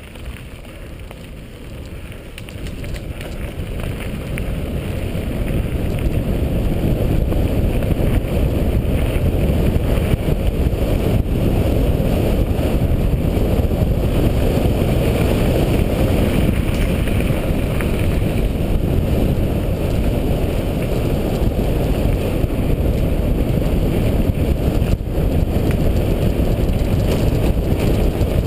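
Wind buffeting the microphone and the rumble of mountain-bike tyres on a gravel track, building over the first several seconds as the bike gathers speed, then steady, with an occasional knock.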